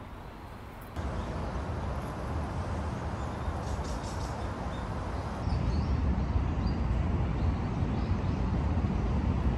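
Outdoor ambience: a steady low rumble, like wind on the microphone or distant traffic, with a few faint bird chirps. It jumps louder about a second in and again a little past the middle.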